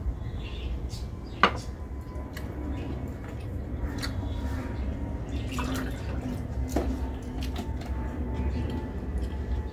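Gulps of water from a drinking glass, then a sharp clink about one and a half seconds in as the glass is set down. After that come small scattered clicks of fingers scraping a brass plate, over a steady low hum.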